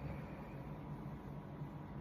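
Steady low hiss with a faint low hum: background noise of the recording in the pause between a sleeping woman's snores.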